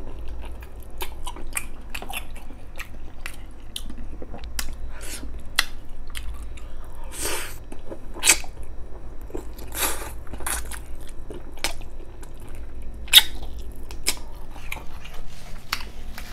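Close-up mouth sounds of a person biting braised pork spare ribs off the bone and chewing, with many short smacks and clicks; a few louder smacks come about 8, 10 and 13 seconds in.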